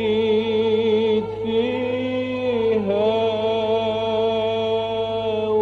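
Classic Egyptian Arabic song: long held melodic notes with vibrato, gliding to a new pitch twice, over a steady low hum.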